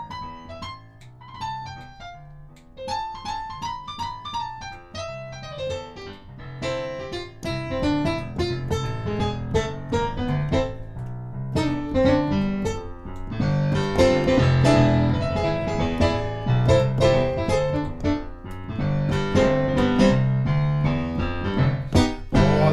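Yamaha digital keyboard played with a piano voice: an instrumental passage of melody over chords, with no singing. The playing grows fuller and louder about halfway through.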